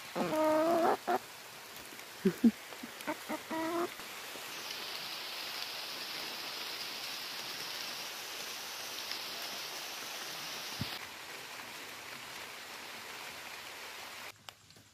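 An animal calls twice with drawn-out, wavering cries of about a second each, with a few short knocks between them. A steady high hiss follows and fades out near the end.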